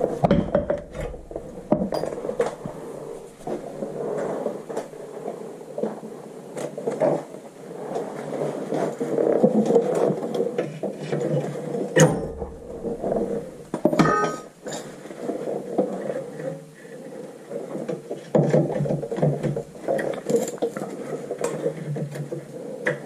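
Metal clinks, knocks and scraping from hand tools and brake parts being handled during a rear brake job, irregular throughout, with sharper knocks about twelve and fourteen seconds in.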